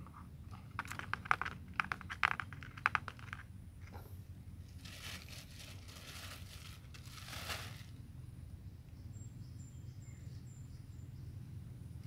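Black plastic bag crinkling as it is handled: a run of sharp crackles in the first few seconds, then a longer rustle midway.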